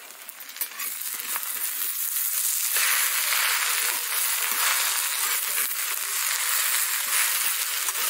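Red amaranth leaves frying in mustard oil in an iron kadhai, sizzling as they are stirred with a steel spatula. The sizzle is soft at first and turns loud and steady about three seconds in.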